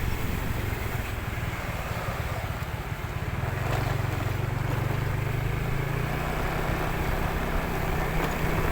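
Steady low engine drone and road noise of a vehicle under way.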